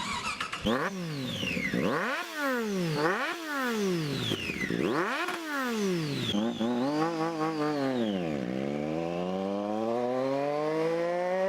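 Honda CG 125 motorcycle's single-cylinder engine being revved, its pitch climbing and falling in a string of quick throttle blips, then dipping and climbing slowly in one long rev near the end. It is loud; the rider calls it too noisy to talk over.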